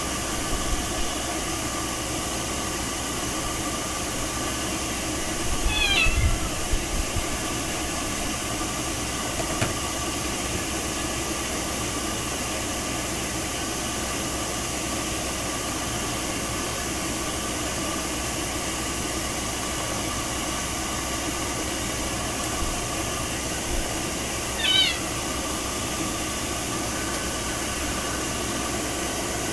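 A blue point mitted Ragdoll cat meowing twice, about six seconds in and again near the end, over a steady rushing noise.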